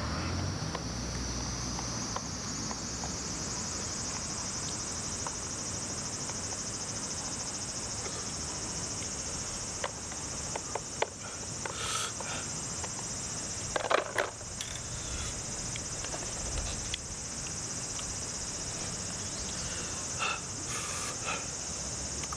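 Steady high-pitched chirring of insects throughout, with a few brief eating sounds from noodles being eaten with chopsticks out of a plastic tray, the loudest about fourteen seconds in.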